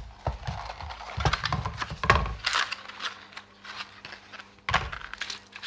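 Irregular rustling and light knocks from handling packaging as a replacement phone LCD is unwrapped and taken out of its box.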